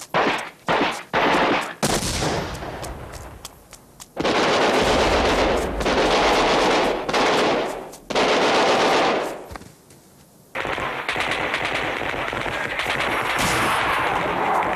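Automatic gunfire: a few short bursts, then two long sustained bursts of machine-gun fire, a brief lull, and a continuous din of fire from about two-thirds of the way through.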